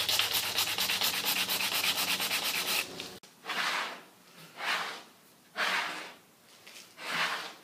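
Folded sandpaper rubbed fast back and forth by hand along the tight spot on a table saw sled runner. About three seconds in, four separate sliding rushes follow as the melamine sled is pushed back and forth across the saw table, testing whether the runner now runs smooth in the miter slot.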